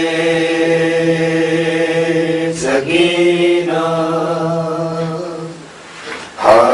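Wordless vocal drone of long held, chant-like notes, the backing for a noha recording. The held notes break briefly about two and a half seconds in, fade out shortly before the end, then start again just before the end.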